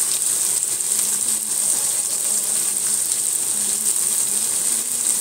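Sliced onions sizzling steadily in hot oil in a karahi.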